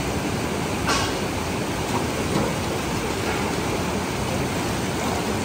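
Fast-flowing mountain river rushing over rocks: a steady rush of whitewater, with a brief sharp click about a second in.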